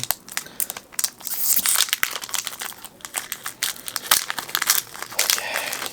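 Foil Pokémon booster pack wrapper crinkling and crackling in the hands, with some tearing as the pack is opened.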